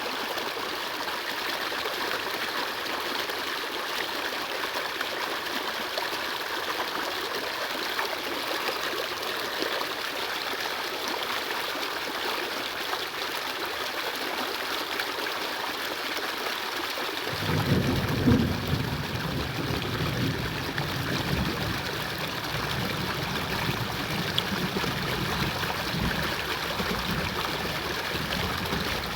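Steady rush of flowing water, like a small stream running. A low rumble joins it a little past halfway through.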